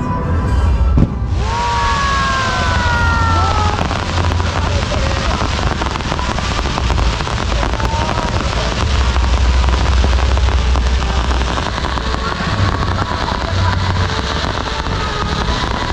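Fireworks finale barrage. A sharp crack about a second in opens a continuous dense crackle of bursting shells over deep booming. Several whistling shells fall in pitch a few seconds in.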